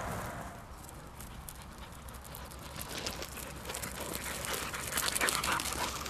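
A white setter hunting dog running through dry stubble close by. A quick patter of footfalls and rustling grows louder over the last few seconds as it comes near.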